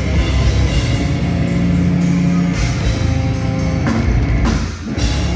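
Deathcore band playing live, loud heavy-metal guitars and drums, with a brief drop-out a little under five seconds in before the full band comes back in.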